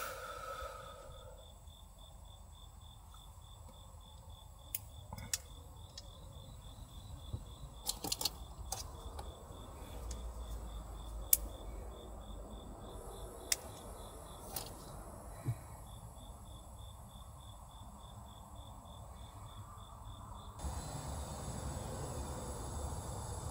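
An insect chirping in a quick, steady, high-pitched pulse, which pauses briefly near the middle. Scattered sharp clicks and taps sound over it, and a steady hiss comes up near the end.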